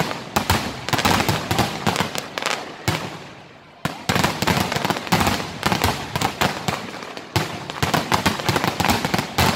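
Aerial fireworks display: a dense, rapid volley of shell bursts and crackling. It thins into a brief lull about three seconds in, then breaks out again abruptly into a fast barrage.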